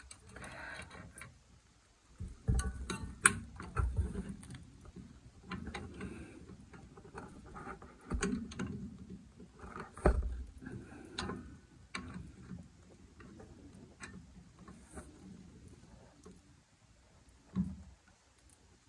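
Pliers and metal brake parts handled at a drum-brake backing plate: scattered small metallic clicks and scrapes as a shoe hold-down spring and cap are pressed and turned onto the stud, with a few dull knocks mixed in.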